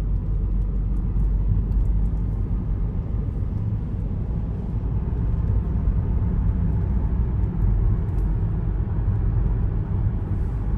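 Car on the move, a steady low rumble of road and engine noise.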